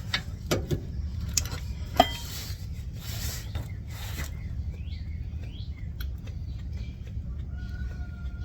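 Hand grease gun being worked on the idler arm's grease fitting: a run of sharp metal clicks and clinks, the loudest about two seconds in, that stop after about four seconds. Birds chirp faintly in the background after that.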